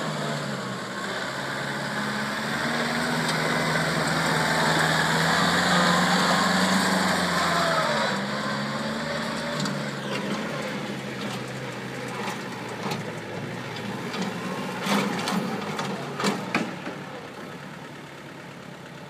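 Kubota compact tractor's diesel engine running as the tractor drives past on gravel. It grows louder until about six seconds in, then fades away, with a few sharp knocks near the end.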